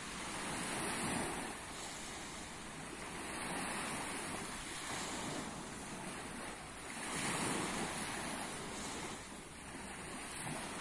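Small sea waves lapping and breaking on a sandy beach, the wash swelling and falling back every few seconds.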